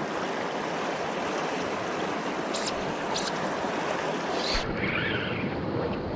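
Steady rush of river water flowing, with two short hisses in the middle; the sound turns duller about four and a half seconds in.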